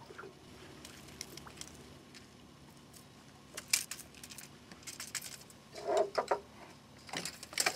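Fishing tackle being handled: a spinning reel and lure gear clicking and clattering, with a few sharper metallic rattles and a duller knock in short bursts about four, six and seven and a half seconds in.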